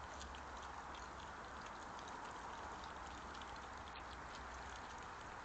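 Faint steady hiss with a low hum, scattered throughout with small irregular ticks and crunches: European badgers chewing and foraging on food scattered on the grass close to a trail camera's microphone.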